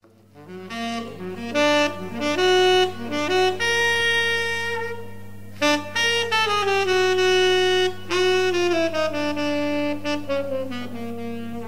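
Instrumental music: a single melody line moving note to note, with some notes sliding down, over a steady low hum.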